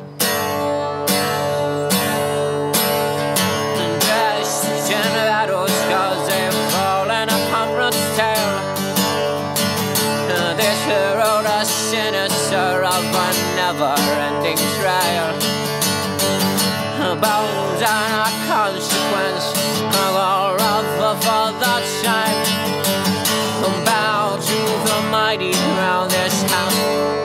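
Acoustic guitar strummed in a steady rhythm, with a higher melody line that wavers in pitch over it, in an instrumental break of a folk-rock song.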